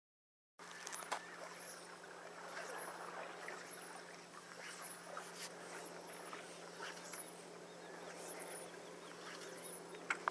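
Birds calling, starting about half a second in: a high chirp repeats about once a second over a busy mix of other calls, with a steady low hum underneath.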